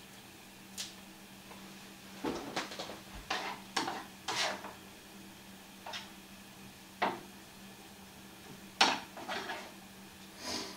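A spoon scraping and clinking against a skillet in irregular strokes as rice is stirred to heat it through without sticking to the bottom of the pan. A low steady hum runs underneath.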